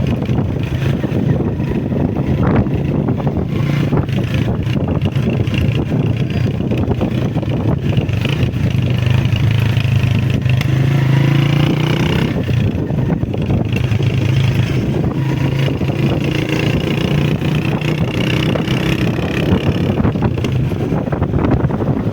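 Honda CG125 motorcycle's single-cylinder four-stroke engine running under way, its pitch climbing about halfway through and then dropping back.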